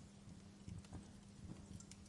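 Wood fire crackling faintly: scattered soft pops and snaps, with a few low knocks, over a faint steady low hum.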